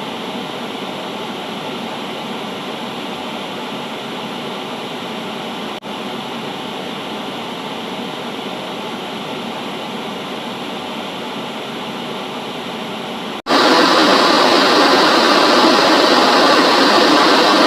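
Steady hiss of static noise, dropping out for an instant about six seconds in, then jumping suddenly to much louder static about thirteen seconds in.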